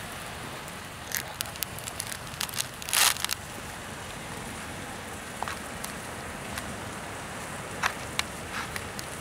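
Campfire crackling, with scattered sharp pops over a steady hiss; the loudest pops come about three seconds in.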